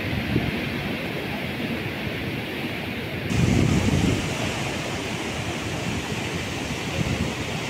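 Wind buffeting the microphone over surf breaking against rocky cliffs, with a louder rumble of wind for about a second, three to four seconds in.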